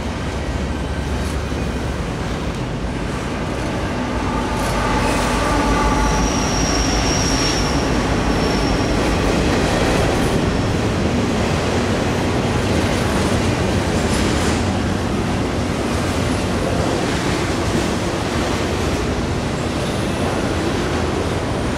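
Double-stack intermodal freight train rolling past close by: steady noise of the well cars' wheels on the rails. A brief, thin high squeal comes in from about six to nine seconds in.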